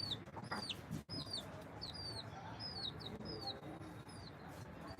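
Chicken chicks peeping: a steady run of short, high cheeps, each falling in pitch, about two a second.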